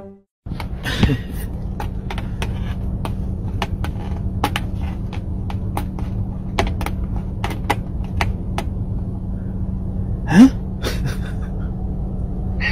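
Steady low hum and rumble in a car cabin, with scattered light clicks and taps as a cat clambers over tyres and seats. A short rising vocal sound comes about a second in, and a louder one about ten seconds in.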